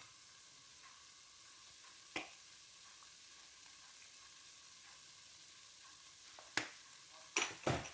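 Faint, steady sizzling of onion, garlic, ginger and tomato cooking in a pot over low heat, with a sharp clink of a spoon against the pot about two seconds in and a few more near the end.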